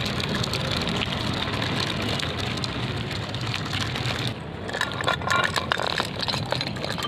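Small electric gear motors of a homemade RC car running, a steady whirring-rattling noise that turns choppier, with clicks and knocks, about four seconds in.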